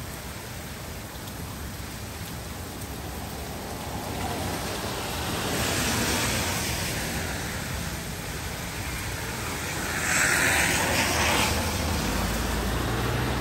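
Steady heavy rain with two cars passing on the wet street, their tyres hissing through standing water: one about halfway through, and a louder one near the end.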